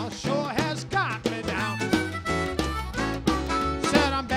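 Blues harmonica solo with bending, gliding notes over a small acoustic band: acoustic guitar, a Jerry Jones Longhorn bass playing a steady walking line, and a snare drum keeping time.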